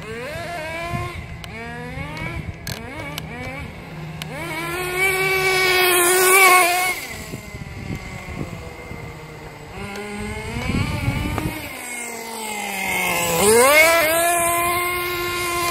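Radio-controlled drift car's motor running, its pitch rising and falling again and again with the throttle. It sweeps up sharply and gets loudest about thirteen seconds in as the car accelerates.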